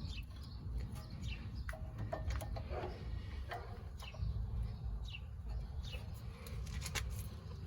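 Birds chirping, short falling chirps every second or two over a steady low rumble, with a few sharp clicks near the end.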